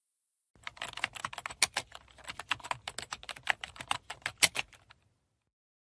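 Typing on a laptop keyboard: a quick, uneven run of key clicks starting about half a second in and stopping about a second before the end.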